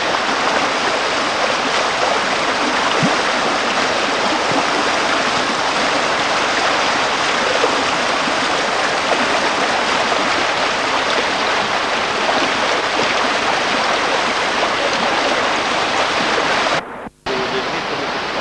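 Fast river rapids: a steady rush of white water pouring over rocks. The sound cuts out for a moment near the end and returns a little quieter.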